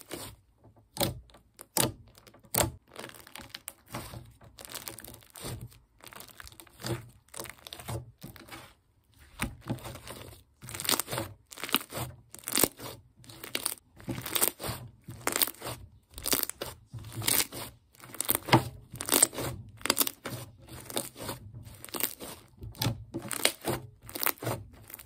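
Fluffy pale-blue slime being squeezed, kneaded and pressed by hand, giving crunchy crackles and pops. They come about twice a second and grow denser and louder in the second half.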